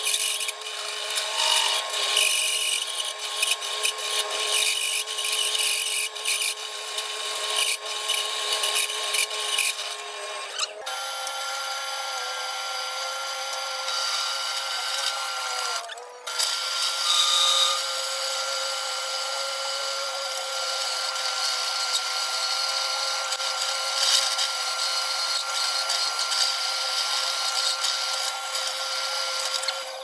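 Drill press cutting holes in sheet steel. For the first ten seconds or so a hole saw cuts with an uneven, rasping chatter. After a change it runs steadier with a twist bit, with a short break near the middle.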